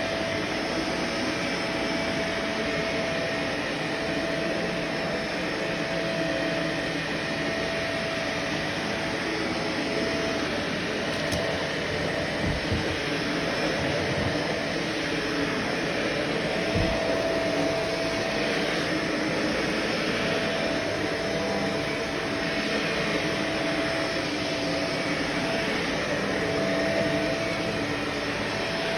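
Vacuum cleaner running steadily, with a whine that fades in and out and a couple of soft bumps in the middle.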